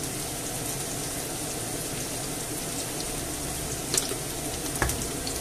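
Chopped onion, garlic and peppers sizzling steadily in a hot frying pan, with two light clicks about four seconds in.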